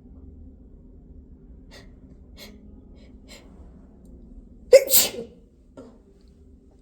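A woman's induced sneeze: three short, faint hitching breaths, then one loud sneeze about five seconds in.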